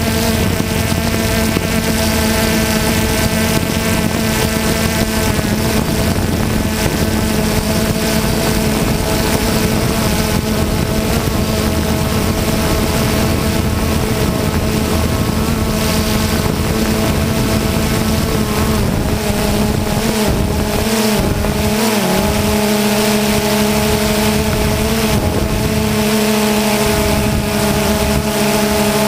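Engine or motors of the aircraft carrying the camera, running at a steady pitch with a brief wavering change in pitch about twenty seconds in, over wind noise on the microphone.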